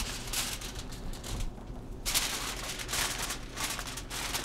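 Sheet of aluminum foil crinkling as it is handled and laid over a pan, in irregular rustles with a short lull about a second and a half in.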